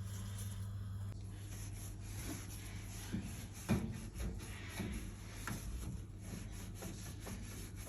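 Irregular rubbing and scrubbing strokes of cleaning the surfaces of a microwave, over a steady low hum.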